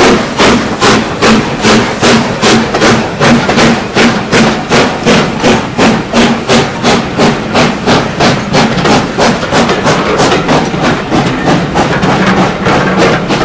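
Hughes/Fowler 'Crab' 2-6-0 steam locomotive 13065 working a train past, its exhaust beating sharply and evenly about three times a second. The beats weaken near the end as the coaches roll by.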